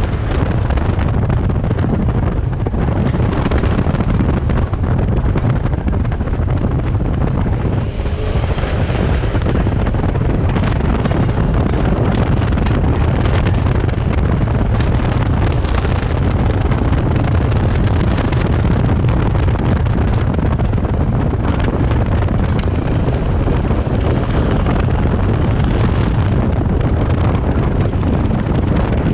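Kawasaki Versys 650's parallel-twin engine running steadily under way, with heavy wind noise buffeting the microphone.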